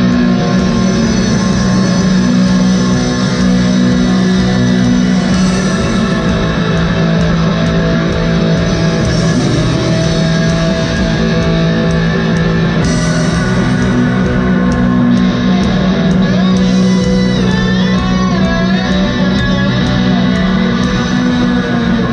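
A live rock band playing an instrumental, with heavy bass and electric guitar. Guitar lines slide in pitch about two-thirds of the way through.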